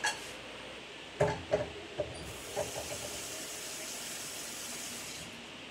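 A few light knocks and clicks of kitchen items being handled, then a steady high hiss for about three seconds that stops near the end.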